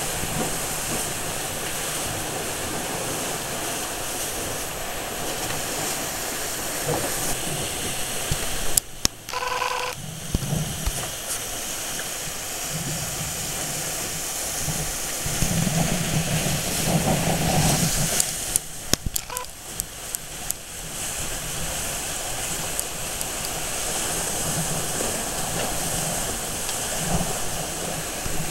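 Wind blowing across the microphone and water rushing past the hulls of a trimaran sailing through choppy sea: a steady, hissing rush that swells and eases in gusts, with a few clicks and knocks about a third and two thirds of the way through.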